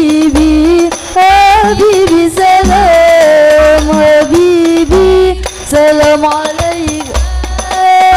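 Banjari sholawat singing with frame-drum accompaniment, amplified through a small PA sound system. A single ornamented vocal line runs over deep drum beats that land about once a second.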